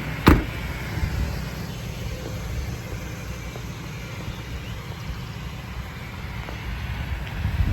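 A single loud thump just after the start, over the low steady idle of the Ford F550's V10 engine, with a few faint knocks.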